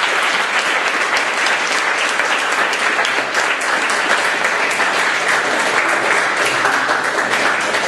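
Audience applauding: many people clapping together, loud and steady.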